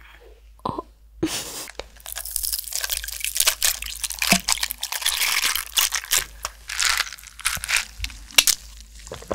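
Mint milk poured from a plastic bottle into a clear plastic cup packed with ice: a dense pouring hiss with the ice crackling and clicking in the cup, then quieter ice clinks as the cup is lifted to drink near the end.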